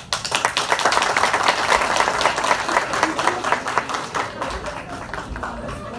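Audience applauding, starting suddenly, loudest in the first few seconds, then dying down toward the end.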